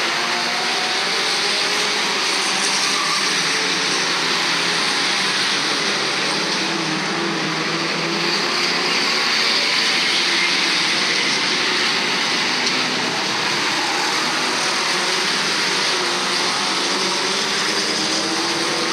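A pack of stock cars racing around an oval, their engines running together in a continuous din, with engine notes rising and falling as cars pass.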